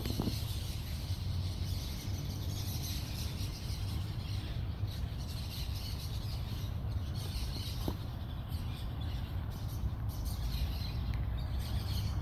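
Outdoor garden ambience: a steady low rumble with faint, fluctuating high chirping in the background.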